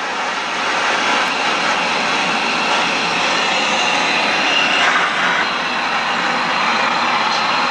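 LPG burner on a home-built Stirling engine giving a steady, loud rushing roar, with no clear beat to it.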